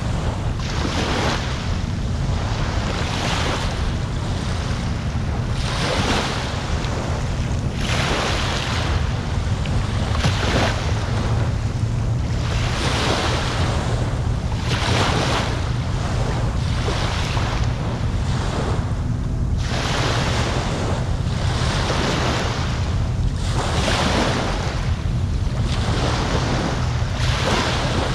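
Small waves breaking and washing onto the shore every second or two, over a steady low rumble of wind on the microphone.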